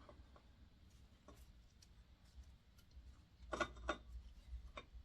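Light metal clicks and clinks from clutch parts being handled and worked out of a Honda CB700SC motorcycle engine: a few faint taps, then two sharper clicks close together about three and a half seconds in and one more near the end.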